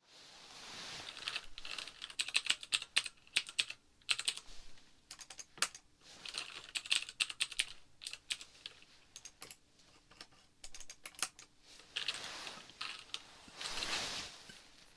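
Close-miked ASMR trigger sounds: rapid bursts of small clicks and taps, with soft rustling swells between them.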